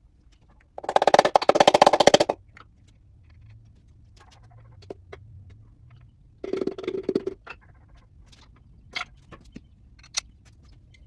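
Air impact wrench on the 327 small-block's fasteners: a long burst of rapid hammering rattle about a second in, a shorter burst past the middle, then a few light metallic clicks of tools.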